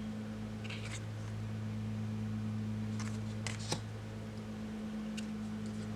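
Tarot cards being handled and laid out: a few short, soft swishes and taps about a second in and again around three to four seconds in, over a steady low hum.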